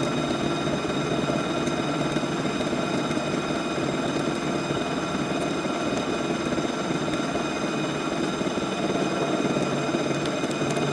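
CNC vertical milling machine running a finishing pass: a steady mix of spindle whine and cutting noise that holds constant throughout.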